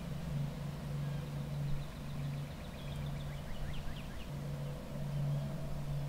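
A vehicle engine running steadily with a low, slightly pulsing hum. Over it, a bird sings a quick run of short chirps about two to four seconds in.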